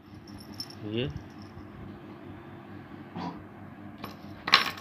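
Metal fishing spoon lures clinking against each other as they are handled, with a sharp metallic jingle near the end.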